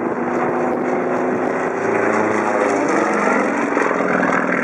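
Single-engine aerobatic propeller plane's piston engine and propeller droning overhead, the pitch rising toward the end as the aircraft manoeuvres.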